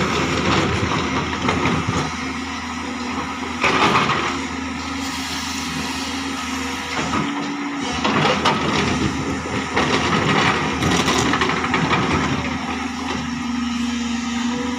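JCB tracked excavator's diesel engine working under load, with the hydraulics driving the bucket through rocky soil. There are louder rushes about four seconds in and again around eight to eleven seconds.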